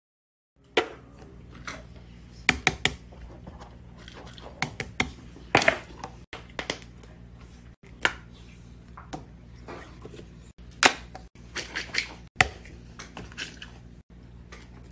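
Irregular sharp clicks and clacks of plastic fidget toys being handled, over a low steady hum, with the sound cutting out briefly several times.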